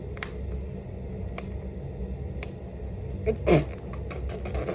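A few light clicks from a small plastic eyeliner package being handled, then, about three and a half seconds in, a short vocal sound falling in pitch. A steady low hum runs underneath.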